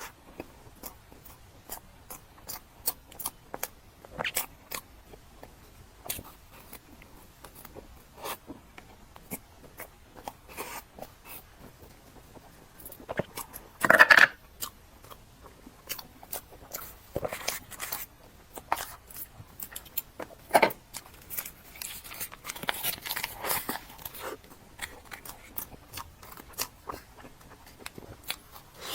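Close-miked eating of rainbow layer cake: bites and chewing made up of many short wet clicks and smacks, with one louder bite or mouth sound about fourteen seconds in and a busier stretch of chewing near the three-quarter mark.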